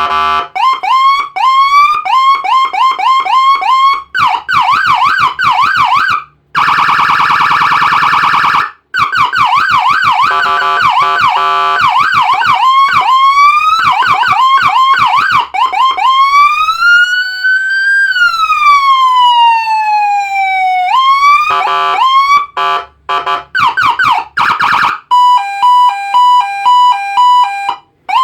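PATWAL PJR electronic police siren cycling through its tones: rapid rising yelps, a steady buzzing horn tone for about two seconds, more yelps, a slow wail that rises and falls about halfway through, then quick sweeps and a stepped hi-lo pattern near the end.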